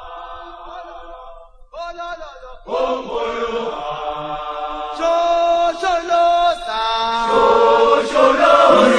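A group of voices chanting in harmony with no instruments, holding long notes with short breaks between phrases. More voices come in about three seconds in, and the singing grows louder in steps toward the end.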